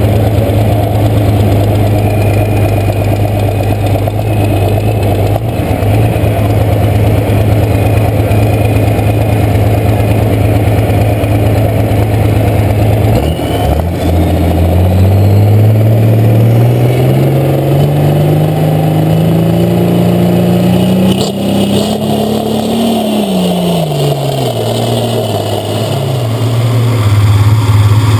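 International 1066 pulling tractor's turbocharged inline-six diesel running loud and steady. About halfway through, its pitch climbs steadily for several seconds as it speeds up, then drops back. Near the end it gets louder again.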